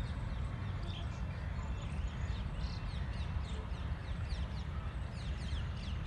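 Birds calling in the background, many short falling high-pitched chirps, over a steady low rumble.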